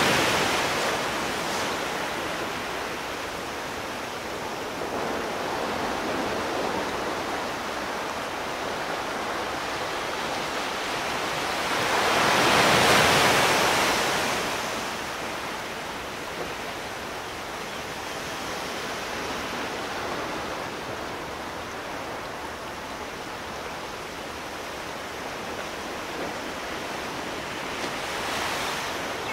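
Sea surf washing steadily, with one larger wave breaking and swelling louder about halfway through before falling back.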